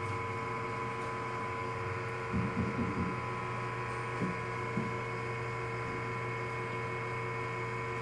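Steady electrical mains hum made of several fixed tones, with a few brief faint sounds about two to three seconds in.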